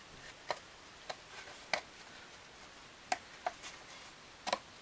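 Light, irregular wooden clicks and taps, about six in all, as a thin plywood bottom panel is test-fitted into the rabbets of a small mahogany box.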